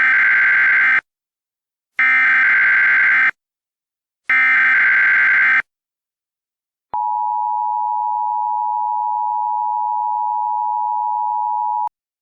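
Emergency Alert System header tones: three harsh, buzzing data bursts about a second long each, followed about a second later by a steady alert tone held for about five seconds that stops abruptly. Together they announce that an emergency broadcast message is about to follow.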